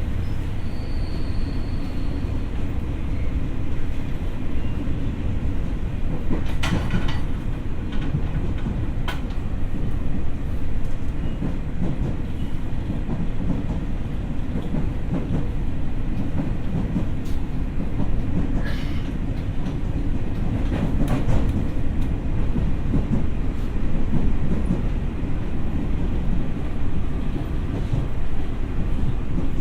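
Tokyo Metro 6000 series electric train running steadily, with a continuous low rumble of wheels on track and a few sharp clicks as the wheels pass over rail joints.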